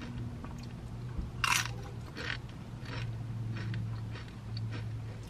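Crunching bites into thin, crispy tortilla chips dipped in salsa, and chewing. One loud crunch comes about a second and a half in, followed by a run of smaller crunches.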